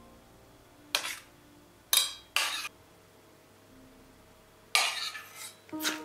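A metal spoon scraping and clinking against a dish in five short, sharp bursts while spooning out raspberry jam.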